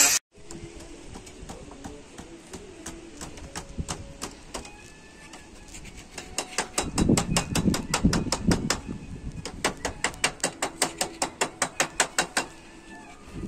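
A rapid, regular run of sharp clicks or taps, about four a second, strongest in the second half, with faint bird chirps.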